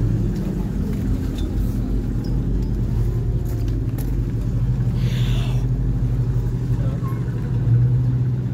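A car engine idling with a steady low rumble, and a brief higher-pitched noise about five seconds in.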